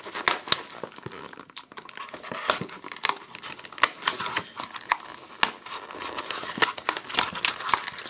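Plastic packaging bag crinkling and crackling as it is opened and handled, an irregular string of sharp crackles.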